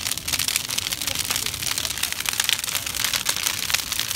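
Wooden pallet bonfire burning hard, crackling and popping in a dense, continuous stream of sharp snaps over the low rush of the flames.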